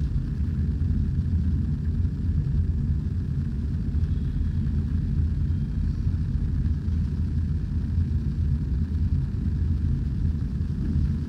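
A steady low rumble that holds at an even level throughout, with nothing else standing out.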